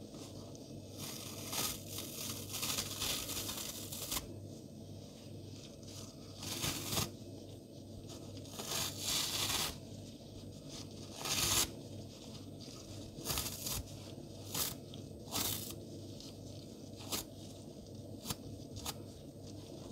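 Soapy yellow sponge being ripped apart by hand: a dozen or so crisp tearing rips, some drawn out over a second or more, others short, with pauses between.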